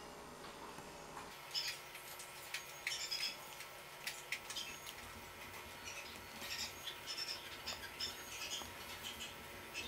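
Silicone candy mould being flexed and peeled to release set chocolate shapes: irregular bursts of soft, sticky crackling with small clicks as pieces come free and are set down on the pan, starting about a second in.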